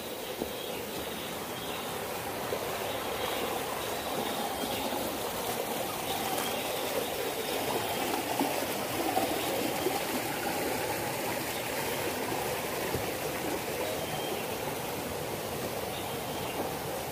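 Shallow rocky forest stream running, a steady rush of water that swells slightly around the middle.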